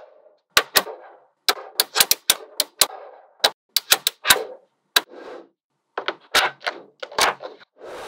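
Small magnetic balls clicking sharply as they snap together, a rapid, irregular series of clicks, some in quick clusters, with short gaps between.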